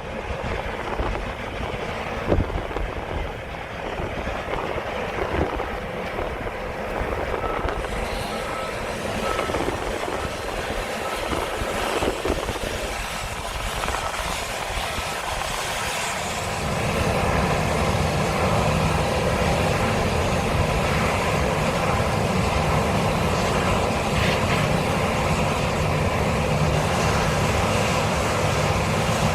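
John Deere combine harvester running, a continuous machinery and engine drone mixed with wind noise. About 16 seconds in it grows louder and settles into a steady low hum.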